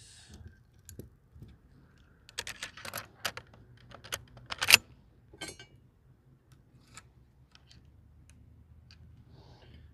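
Metal parts of a Zastava PAP M90 AK-pattern rifle clicking and clacking as the field-stripped rifle is put back together. A run of sharp clicks starts about two seconds in, with the loudest clack near the middle, then a few scattered light ticks.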